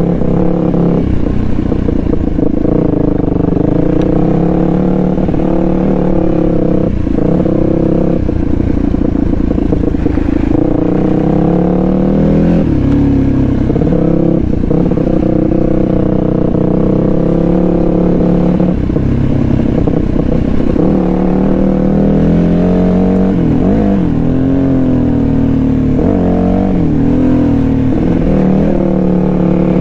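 Dual-sport motorcycle engine running steadily under changing throttle, its pitch rising and falling repeatedly as the rider works it over rough trail.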